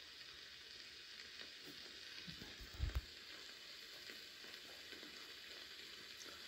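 Faint steady hiss with light crackle, and a couple of brief low thumps about three seconds in.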